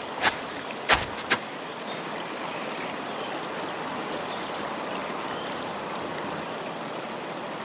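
Three sharp knocks in the first second and a half, then a steady, even hiss of outdoor background noise, like running water.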